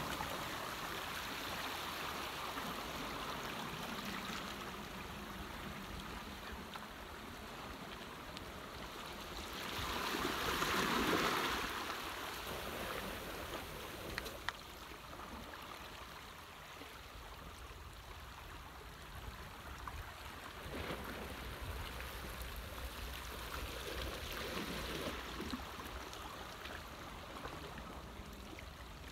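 Seawater sloshing and trickling, swelling louder for a couple of seconds about ten seconds in, with a single sharp click a few seconds later.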